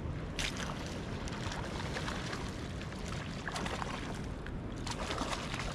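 Wind buffeting the microphone over water sloshing at the shoreline, with a few brief louder splashy rushes.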